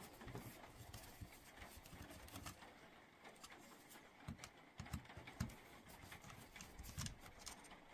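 Faint scattered clicks and light scraping of a hand screwdriver working the small screws that hold the circuit board inside a Makita 18V LXT battery pack.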